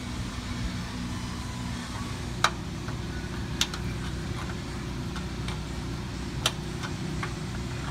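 Steady hum of a shop fan, with a few sharp metallic clicks from a wrench being worked on a fitting under the truck; the loudest click comes about two and a half seconds in, with others about a second later and near six and a half seconds.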